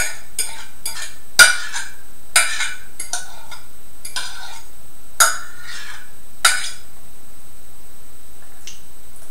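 A metal utensil scraping and clinking against a plate as bananas are scraped off it into a mixing bowl, about seven strokes roughly a second apart, the loudest about a second and a half in. The strokes stop about seven seconds in.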